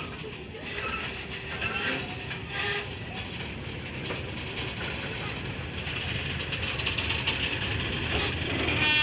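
Freight train of Pertamina fuel tank wagons rolling past at low speed: a steady rumble of wheels on rail with irregular clacks and knocks over the rail joints.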